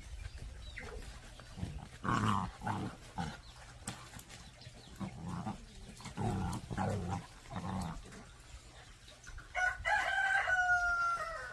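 Pungsan dog puppies play-fighting, growling in short rough bursts. Near the end a single long pitched call of about two seconds, falling slightly in pitch as it ends.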